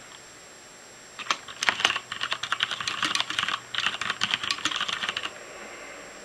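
Typing on a mechanical keyboard with Cherry MX Black linear switches: a quick run of key clacks for about four seconds, with a short pause in the middle, starting about a second in and stopping near the end.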